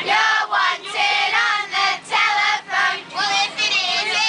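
Children singing in high voices: short sung phrases, one after another, over a faint steady backing tone.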